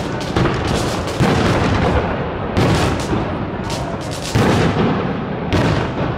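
Fireworks display: aerial shells bursting in a steady barrage, a sharp bang about every second over continuous crackling and rumble.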